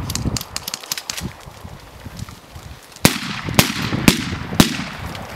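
Gunfire in a night firefight: a spatter of quick, lighter cracks over the first second or so, then four loud shots about half a second apart.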